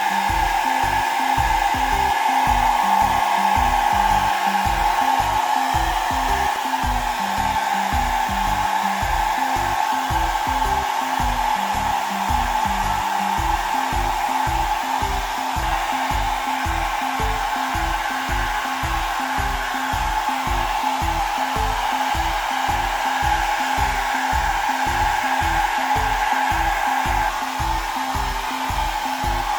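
Hair dryer blowing steadily, over background music with a steady beat of about two beats a second.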